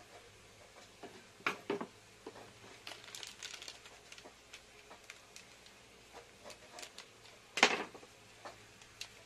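A few knife knocks on a wooden chopping board and light handling clatter, then crinkling of a foil seasoning sachet with one short, sharp rip about three-quarters of the way through as it is torn open.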